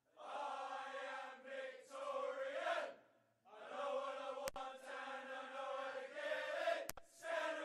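A group of male voices chanting in long held notes, breaking off for a moment about three seconds in and then starting again. Two sharp clicks come through about halfway and near the end.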